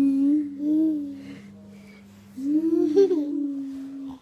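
A child's voice humming long, steady notes, twice, with a lower steady hum underneath.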